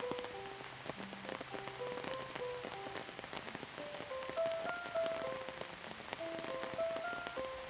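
Steady rain falling, with many individual drops ticking, and a soft, slow melody of single held notes playing over it.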